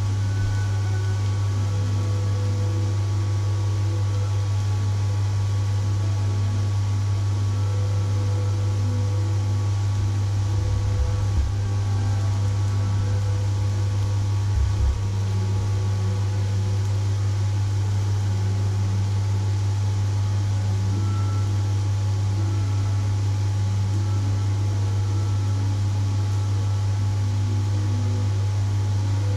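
Steady low electrical hum, with a faint hiss above it and two brief low bumps about 11 and 15 seconds in.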